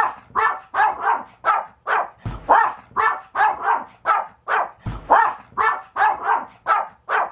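A small Maltese dog barking over and over as it spins in circles: a quick, even run of short, high yaps, nearly three a second.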